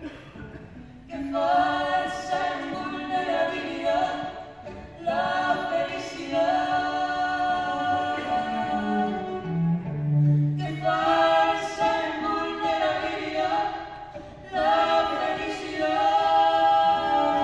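Live vocal duet: a woman and a man singing long, held phrases together into one microphone, with brief pauses between phrases.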